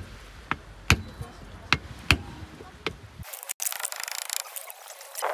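An axe chopping wood: a run of sharp knocks about two a second. After about three seconds the sound cuts to a faint hiss.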